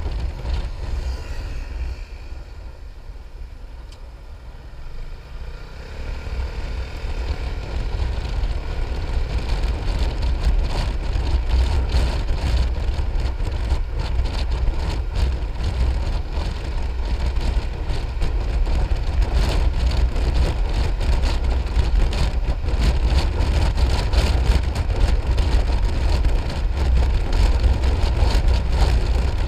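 Piaggio MP3 500 scooter on the move: engine and road noise under heavy wind buffeting on the microphone. The noise drops for a few seconds near the start, then builds again and stays loud.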